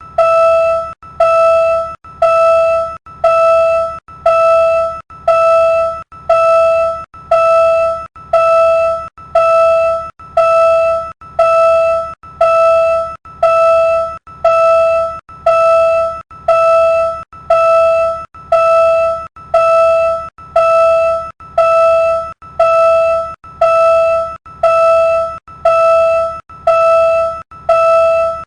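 Philippine railroad crossing warning signal sounding, a pitched electronic bell tone that strikes steadily about once a second, each stroke fading slightly before the next.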